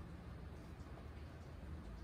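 Quiet room tone: a faint, steady low hum with no other sound.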